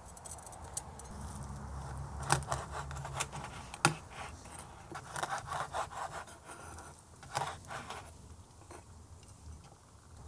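A chef's knife slicing through pork belly on a wooden cutting board: irregular sawing strokes through the meat and crust, with scattered knocks of the blade meeting the board.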